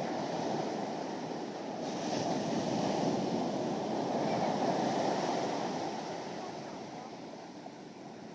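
Ocean surf washing and rushing, swelling and then easing off, with wind on the microphone.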